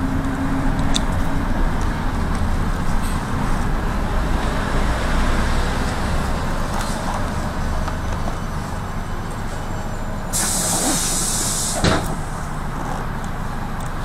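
Minibus engine and road noise heard from inside the cabin while driving, a steady low rumble. About ten seconds in, a hiss lasts about a second and a half and ends in a sharp knock.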